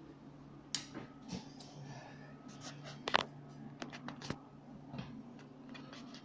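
Faint scattered clicks and short scrapes of a metal tool working on a broken tooth in the mouth, the sharpest about three seconds in, over a steady low hum.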